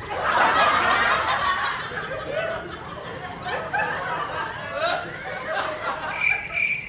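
Laughter and giggling, loudest in the first couple of seconds. Near the end, an edited-in cricket-chirp sound effect starts: a high chirp repeating about two and a half times a second.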